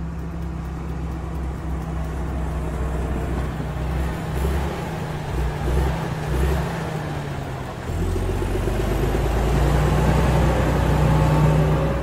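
Heavy truck engine running steadily, the sound effect for a dump truck, louder about two-thirds of the way through.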